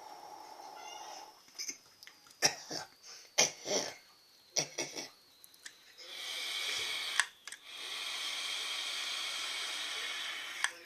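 Vaping on a rebuilt Smok TFV8 sub-ohm tank: a cluster of short clicks and pops, then two spells of steady breathy hissing as vapour is drawn and blown out, the second lasting about three seconds.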